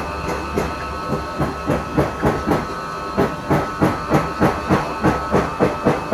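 Small electric stand fan running, with an even pulsing about three times a second over a steady hum.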